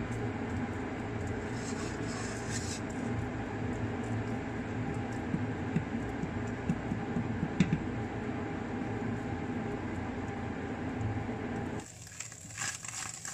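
Flaked canned tuna frying dry in a hot nonstick pan, stirred and broken up with a spatula, with a few light taps of the spatula on the pan, over a steady low rushing noise. Near the end the rushing drops away suddenly and the sizzle and scraping stand out.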